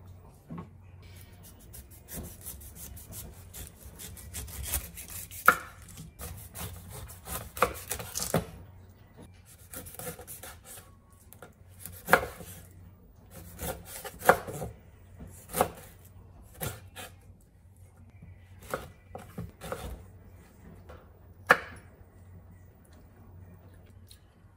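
Chef's knife cutting a whole pineapple on a wooden cutting board: rasping strokes as the blade saws through the tough rind, with irregular sharp knocks of the blade against the board.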